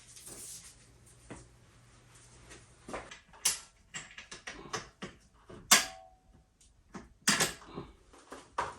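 Hands working the charging cable through a swing-arm cable holder: a string of irregular clicks and knocks of plastic and metal parts, starting about three seconds in, with a few louder ones near the middle and toward the end.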